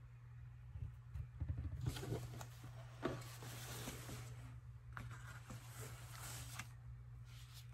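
Rustling and scraping of paper, fabric and cardboard as the pages of a handmade junk journal are handled and turned, with a sharp tap about three seconds in, over a steady low hum.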